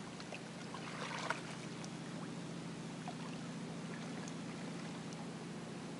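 Steady low hum, with faint water splashes from a kayak paddle.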